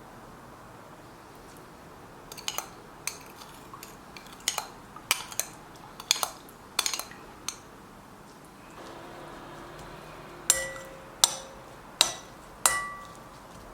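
Kitchen utensils and dishes clinking: a run of light, irregular clicks, then four sharper clinks near the end, each ringing briefly.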